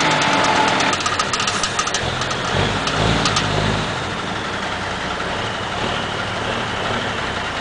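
Diesel engine of a semi-truck tractor running as it slowly pulls a heavy trailer, with a deeper surge of power about two and a half seconds in that eases off after a little over a second. Light clicking over the first few seconds.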